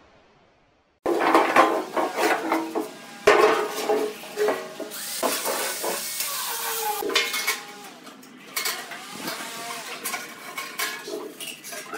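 Steel oil drums clanking and ringing as they are pushed, rolled and knocked against each other on a concrete floor, starting about a second in, then lighter metallic knocks and scraping as a steel ruler is laid across a drum.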